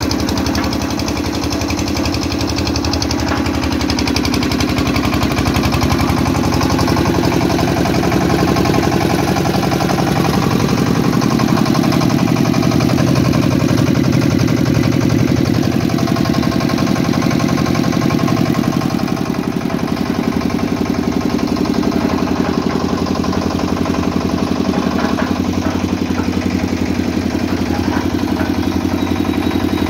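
Kirloskar diesel engine on a concrete mixer running steadily, with a fast, even firing beat.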